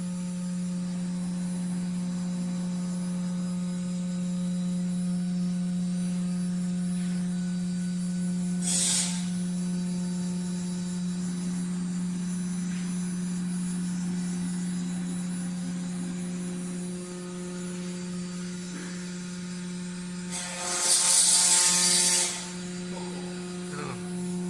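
Acctek AKM6090C mini ATC CNC router running with a steady low hum and a few fainter steady higher tones. A brief hiss comes about nine seconds in, and a louder hiss lasting nearly two seconds comes near the end.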